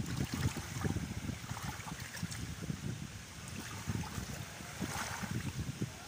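Small sea waves lapping and washing onto the shore, with wind rumbling and buffeting on the microphone. A wave washes in a little louder about five seconds in.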